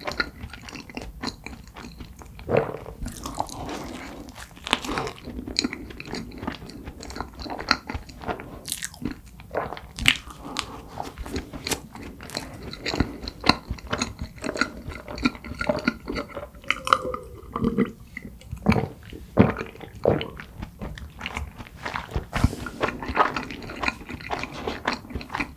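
Close-miked eating sounds of a person biting and chewing soft cream-filled red bean buns, with many short wet clicks and smacks from the mouth.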